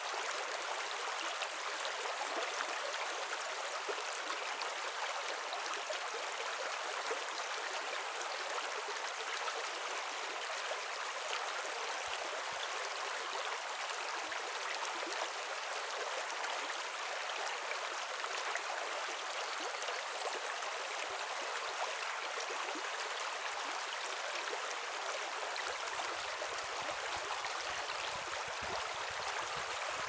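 Shallow babbling brook running over a stony, pebbly bed: a steady, even rush of water.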